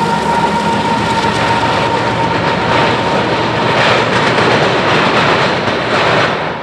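Freight train passing close: a Union Pacific diesel locomotive leading double-stack container cars. A steady tone fades in the first second. After that comes dense rumble, with the wheels clattering over the track in a run of loud clacks through the middle and later part.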